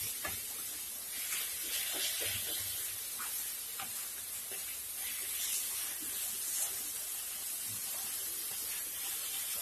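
Grated bottle gourd and sugar sizzling in ghee in a non-stick kadai over a high gas flame, stirred steadily with a wooden spatula that scrapes and taps against the pan.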